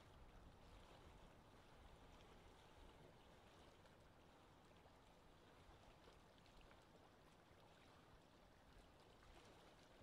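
Faint lapping water: a steady, gentle wash of water.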